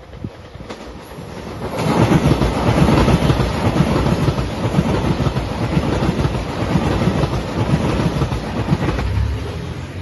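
JR Shikoku 2700 series diesel limited-express train passing close by at speed. It is loud from about two seconds in and eases off near the end.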